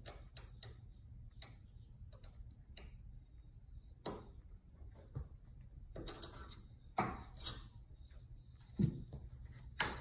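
Light, irregular clicks and taps of an Allen wrench working loose the screw on a Minn Kota Ultrex trolling motor's front cover, with a couple of brief scraping handling sounds near the middle.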